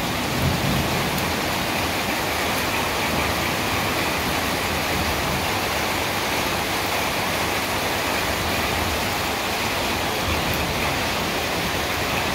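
Heavy rain pouring down in a thunderstorm: a dense, steady hiss that stays even throughout.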